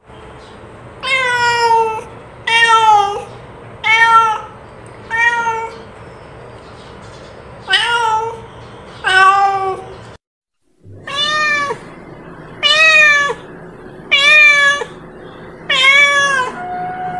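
Domestic cat giving calling meows over and over: about ten drawn-out calls, each dropping in pitch at its end, in two runs split by a brief silence about ten seconds in.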